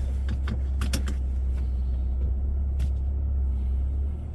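Low, steady rumble inside the cab of a 2025 Ram 1500 with the high-output 3.0 L twin-turbo Hurricane inline-six as it pulls away, with a few light clicks in the first second and a couple more later; the rumble eases slightly near the end.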